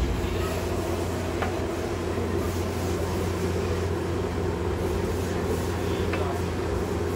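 Onions sizzling and hissing on a large street-stall griddle as they are stirred with a metal spatula, over a steady low hum. Two faint clinks of the spatula, about a second and a half in and near the end.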